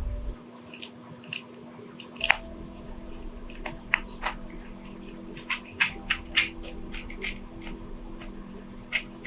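Small repair tools and phone parts being handled: irregular sharp clicks and taps, a cluster of them about six seconds in, over a steady low hum.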